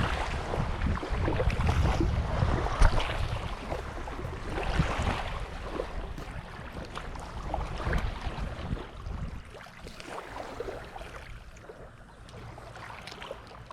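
Wind buffeting the microphone outdoors beside water, a rough low rumble that eases off about nine seconds in, with scattered small clicks.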